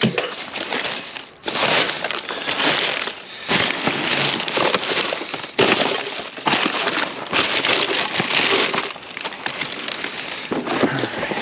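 Junk being dug through and shifted by hand: irregular crunching, rustling and clattering of debris.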